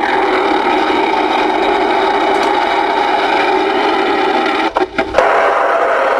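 Ten-meter radio receiver hissing with open-squelch static through its speaker. The hiss cuts out briefly a few times with clicks a little under five seconds in, then carries on.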